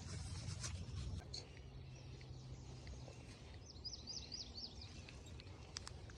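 Faint outdoor ambience with a bird singing a quick run of high, repeated chirps a little past the middle.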